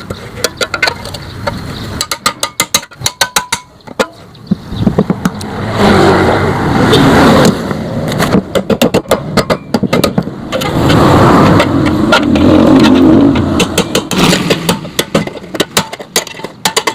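Metalwork on a Yamaha RX-King exhaust muffler being opened up: runs of rapid sharp metal knocks alternate with stretches of louder rough continuous noise.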